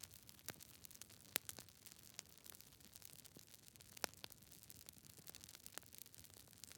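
Wood fire crackling: scattered sharp pops and snaps over a soft, steady hiss, with the loudest pops about a second and a half in and about four seconds in.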